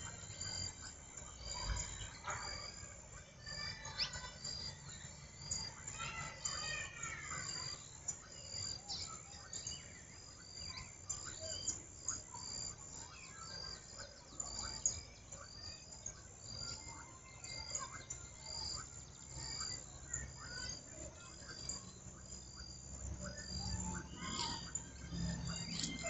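A treeful of birds chirping and calling over one another, with one short, high note repeating about once a second.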